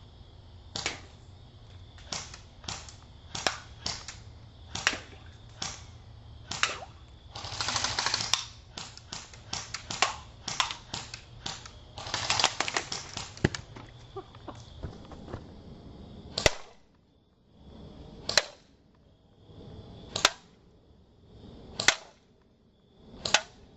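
Airsoft electric gun (AEG) firing: single shots at first, then two short full-auto bursts about seven and twelve seconds in, then spaced single shots about every second and a half near the end.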